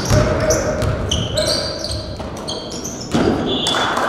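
Basketball game play on a gym court: a ball bouncing, with many short, sharp, high-pitched squeaks from sneakers on the floor over the general chatter of a large hall.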